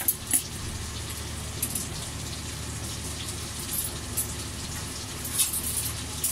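Short, soft crackly rustles of raw chicken pieces being dredged in flour and breadcrumbs with gloved hands, a few scattered ones, over a steady low hum.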